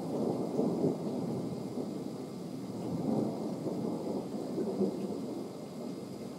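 Thunder rumbling low and rolling, swelling several times.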